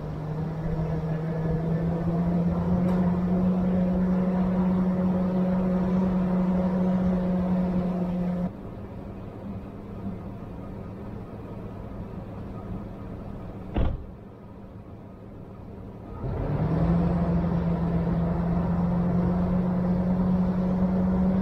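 Pickup truck running with a steady engine hum that climbs slightly in pitch, as if pulling away. It drops to a quieter rumble for several seconds with one sharp knock, then comes back with a rising pitch as the truck speeds up again.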